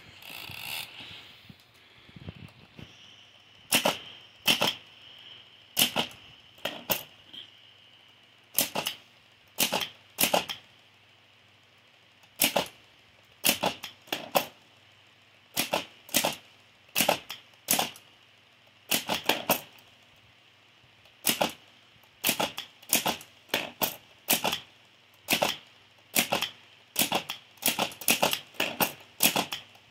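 Hammond Multiplex typewriter being typed slowly, one key at a time: sharp, separate clacks at an uneven pace, sometimes two in quick succession, as its hammer strikes the paper against the type shuttle.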